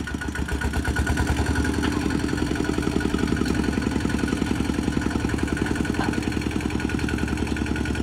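Single-cylinder diesel engine of a two-wheel walking tractor running with a rapid, even thumping. It gets louder about a second in as the tractor is driven.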